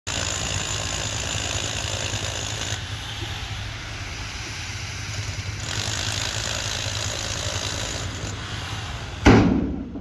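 Tipper truck's diesel engine running as its hydraulic bed is raised to dump a load of rock and sand, a steady low hum under a hiss. About nine seconds in comes a sudden loud burst that fades within about half a second.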